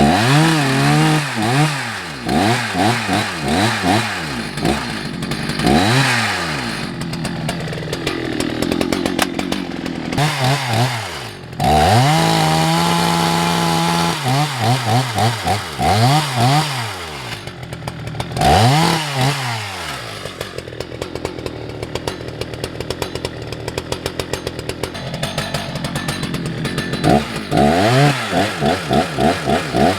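Husqvarna 181 SE two-stroke chainsaw cutting through a large beech log, its engine note repeatedly sagging under load and picking back up, with a short steady stretch at full revs about halfway through. The saw bogs down in the cut, which the owner thinks means it needs a service and its carburettor jets adjusted.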